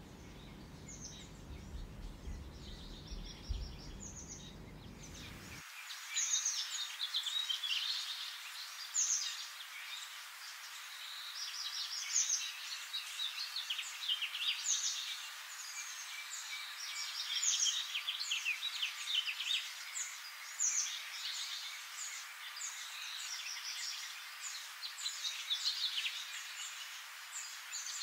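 Small birds chirping and singing, with many short chirps and quick whistled glides, busier after about six seconds. A low rumble underneath cuts off suddenly about five and a half seconds in.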